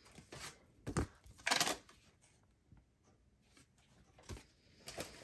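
Paper and cardstock being handled on a craft table: a sharp knock about a second in, a short rustle right after it, and a few fainter taps and clicks later.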